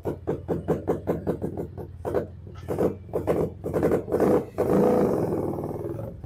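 Vespa scooter engine running through a newly fitted aftermarket exhaust: a fast, uneven popping idle, blipped several times about two seconds in, then held at higher revs as the scooter pulls away.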